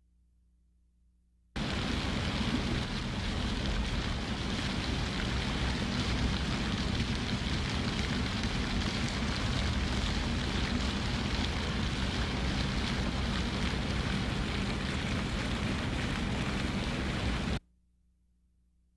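Steady splashing and hiss of water falling from fountain jets, starting suddenly a second or two in and cutting off abruptly near the end.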